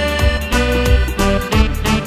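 Upbeat accordion dance-band music with a drum kit keeping a steady beat and keyboard backing.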